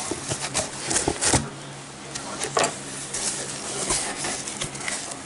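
Hands opening a mailed cardboard package: scattered clicks, taps and scraping rustles of cardboard and paper, over a low steady hum.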